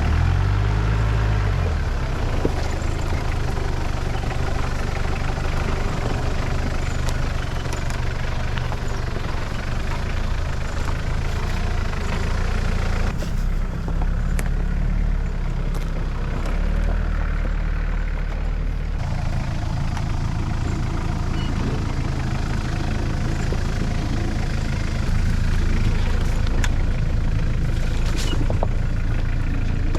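Off-road vehicle engine running steadily while driving on a rough trail, with scattered knocks and rattles. The sound changes abruptly about 13 and 19 seconds in.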